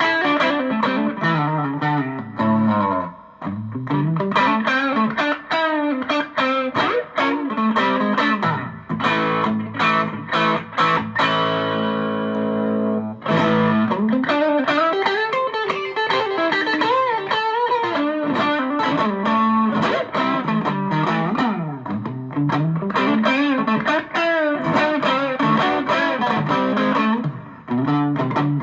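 Electric guitar played through a TC Electronic Dark Matter distortion pedal: distorted lead lines with bent and wavering notes. About eight seconds in, a chord is held ringing for several seconds and then cut off suddenly.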